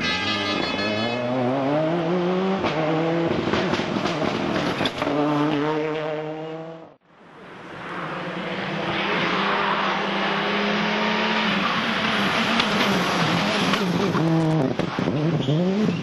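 Rally car engines at full throttle. One car accelerates hard, its pitch climbing in steps through upshifts. After a sudden cut, a second car passes at high revs with tyre noise, its engine note dipping and climbing again near the end.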